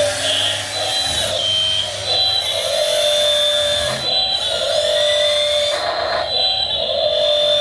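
Electric motors of a 1/16-scale Double E E598 RC excavator whining steadily as it works. The pitch shifts and the whine dips briefly several times as the machine's movements change.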